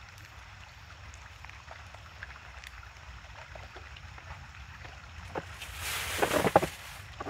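Wind rumbling on the microphone, with faint small taps and crinkles of hands opening a food packet. About six seconds in comes a louder rustling scrape lasting under a second.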